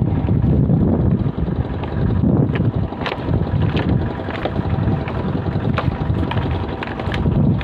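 Wind buffeting the microphone in a loud, uneven low rumble, with scattered light clicks and knocks.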